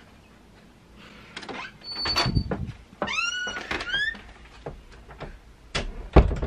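A wooden interior door squeaking on its hinges as it is moved, a few short squeaks rising in pitch, with knocks around them and a heavy thump near the end.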